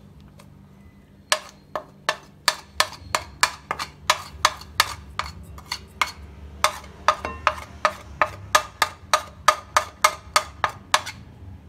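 Metal spoon tapping and scraping against a ceramic plate and glass bowl, knocking spice powders off into the bowl: a long run of sharp clicks at about three a second, pausing briefly midway.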